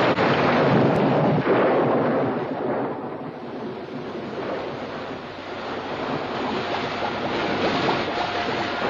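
Storm sound: a steady rush of heavy rain and wind, loudest in the first few seconds.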